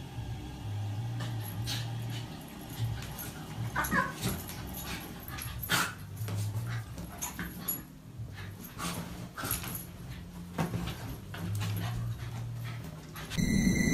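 Small dog giving short whimpers and yips while play-wrestling with a cat, with scuffling on the bedding. A different, louder sound cuts in abruptly near the end.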